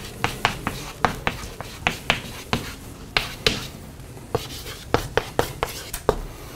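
Chalk writing on a blackboard: a run of sharp, uneven taps and clicks, about four or five a second, as the chalk strikes the board stroke by stroke.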